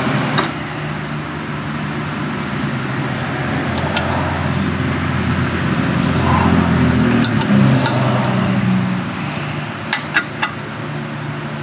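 A steady low motor hum that swells around the middle and eases off near the end, with a few light metallic clicks of small screws and a hand tool being handled as screws are fitted to a small-engine carburetor.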